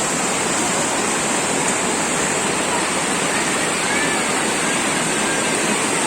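Steady rush of a natural waterfall, water pouring down without a break.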